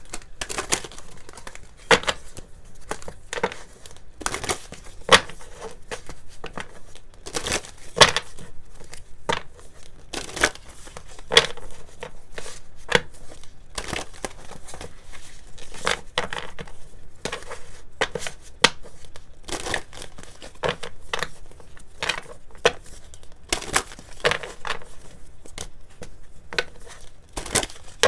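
A deck of oracle cards being shuffled by hand: a continuous run of quick flicks and slaps of card against card, with louder slaps every second or so.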